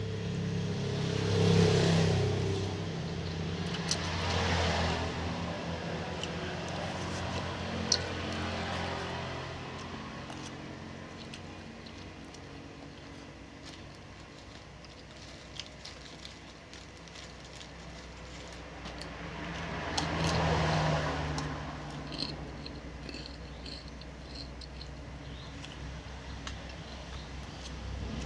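Motor vehicles passing by, their engine hum swelling and fading three times: near the start, a few seconds in, and about two-thirds of the way through. Small clicks and scrapes are heard in the quieter stretches between.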